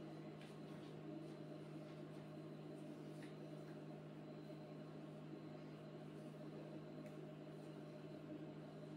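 Quiet room with a steady low hum, and a few faint short squeaks of a marker drawing lines on a whiteboard.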